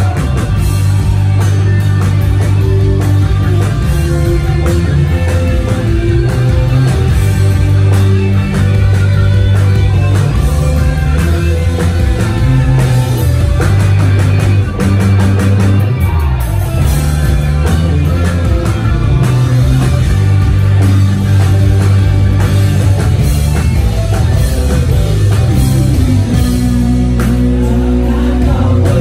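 Rock band playing live and amplified: distorted electric guitars, bass guitar and a drum kit, loud and continuous.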